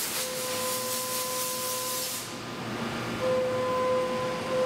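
Tormach PCNC 770 mill fly-cutting aluminium with a Superfly fly cutter: a steady spindle whine under a hiss of cutting and mist coolant spray. The hiss cuts off about two seconds in, and the whine carries on, louder from about three seconds in.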